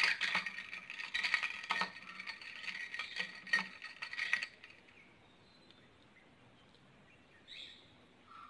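Metal spoon stirring ice cubes in a tall drinking glass, with quick clinks and a light ringing of the glass, stopping about four and a half seconds in.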